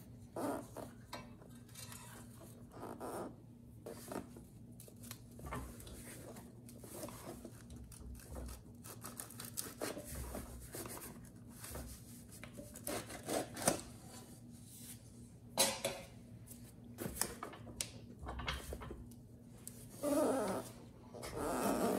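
Metal clinking, knocking and scraping as the stator of a Predator generator head is worked loose and slid off its rotor by gloved hands. The knocks and clicks come irregularly, with a longer scraping rub near the end as the stator comes free, over a faint steady hum.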